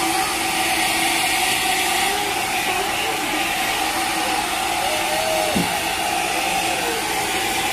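Electric hair dryer blowing steadily, a constant rushing noise with a steady hum under it.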